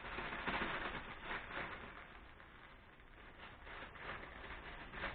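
Granulated sugar being poured over pine cones in a jar: a grainy hiss, loudest in the first couple of seconds, then coming in shorter spurts.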